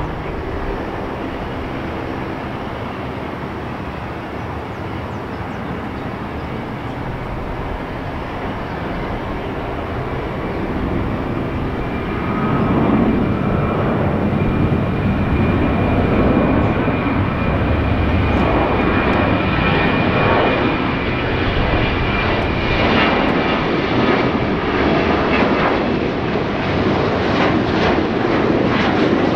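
Boeing 737-800 jet engines: a steady rumble that gets louder about twelve seconds in as the engines go to takeoff power, then runs on loud with a high steady whine over it through the takeoff roll and climb-out.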